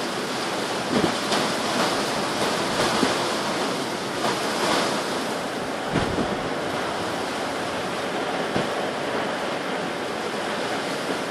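Strong wind blowing in a snowstorm: a steady rushing hiss, with a few gusts buffeting the microphone with low thumps about a second in, around six seconds and again near eight and a half.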